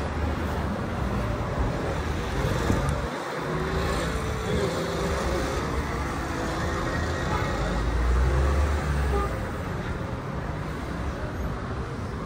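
City street traffic: cars driving past along the road, a steady rumble of engines and tyres that swells deeper about eight seconds in.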